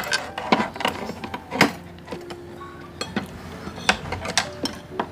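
Spoons clinking and scraping against porridge bowls and containers while eating: a run of irregular sharp clinks, some close together and some a second or so apart.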